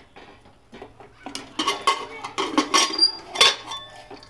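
Lid of a metal pressure cooker, fitted without its rubber gasket, being twisted open and lifted off: metal scraping and clinking, with a run of sharp ringing knocks from about a second in.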